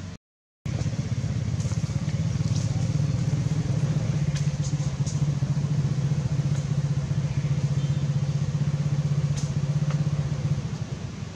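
A motorbike engine running steadily close by: a low, even drone that falls away about ten and a half seconds in. The sound cuts out completely for half a second at the start.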